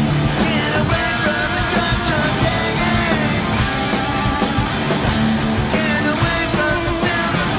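Hard rock band playing live: distorted electric guitars, bass guitar and drums, with a male singer's voice over them.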